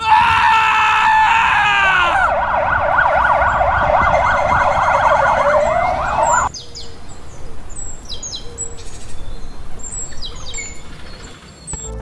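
An electronic siren wailing, then switching to a fast up-and-down yelp that cuts off abruptly about six and a half seconds in. After it, birds chirp over a light hiss.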